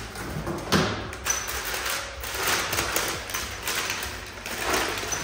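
Handling noise: irregular rustling with a run of quick clicks and light knocks as household items are picked up and moved about.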